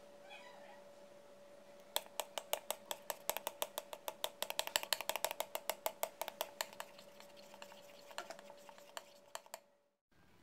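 Metal spoon stirring thin mung bean batter in a bowl, clinking rapidly against the bowl's side several times a second, starting about two seconds in and stopping near the end, as oil is mixed into the batter.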